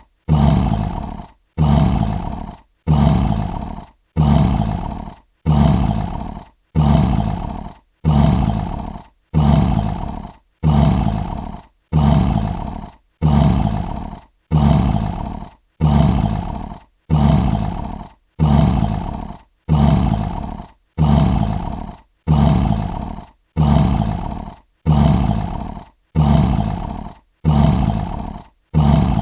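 Lion roar sound effect: one short roar repeated over and over, about every second and a third. Each roar starts suddenly and fades away.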